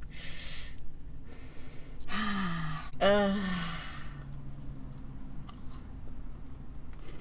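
A woman's breathy inhale, then two short sighing vocal sounds with falling pitch about two and three seconds in, the second the loudest, followed by a faint low hum as she chews a bite of soft cookie.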